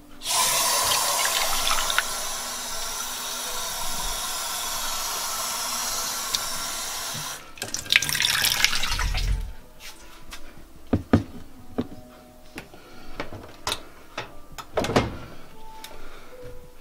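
Kitchen sink faucet running into a ceramic mug for about seven seconds, then shut off. A few knocks and clicks follow as the mug is handled, with a microwave door opened near the end.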